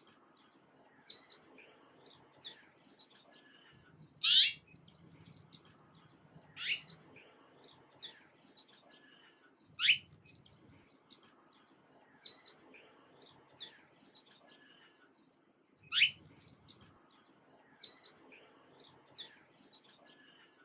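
Birds chirping: scattered short, high chirps over a faint background, with four loud, brief calls that each sweep sharply down in pitch.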